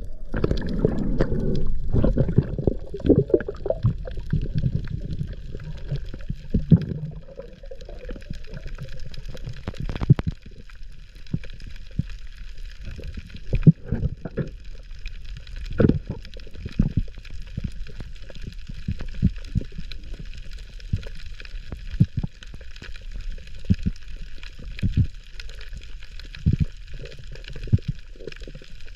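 Water heard underwater: muffled gurgling and sloshing around the camera, heaviest in the first seven seconds, then scattered dull knocks over a steady faint hiss.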